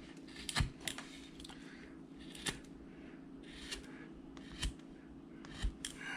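Number 11 carving gouge cutting into wood by hand in short, irregular strokes, chips slicing off, with a faint steady hum underneath.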